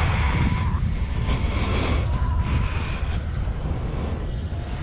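Wind buffeting the body camera's microphone: a steady, uneven low rumble.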